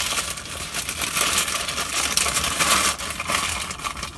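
Parcel packaging being opened and handled: a continuous crinkling and rustling made of many rapid small crackles.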